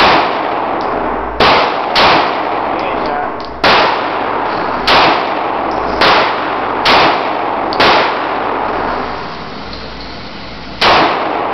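Glock 26 9mm subcompact pistol being fired at an irregular pace, about nine single shots with a ringing echo after each and a longer pause before the last one.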